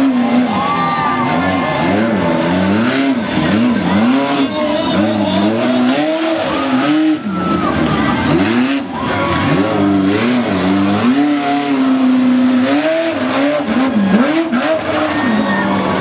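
Race pickup truck's engine revving hard, its pitch climbing and dropping off again and again, roughly once a second, as the driver works the throttle.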